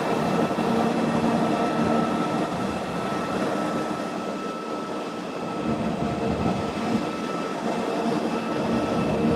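Cog-railway train running, heard from on board: a steady rumble with a whine of several held tones from the drive and rack gearing.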